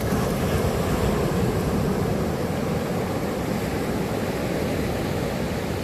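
Ocean surf washing steadily onto a sandy shore, with wind rumbling on the microphone.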